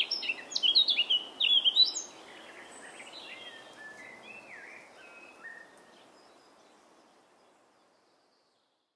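Birds chirping and calling over a soft outdoor background hiss, loudest in the first two seconds, then fading out gradually.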